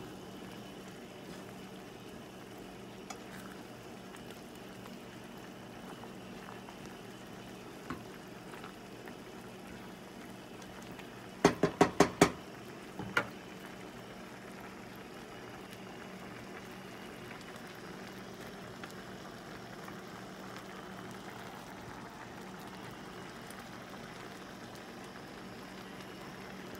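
Pasta shells bubbling in broth and evaporated milk in a skillet on the stove, a steady low simmering boil. About twelve seconds in, a quick run of five sharp knocks, then one more a second later.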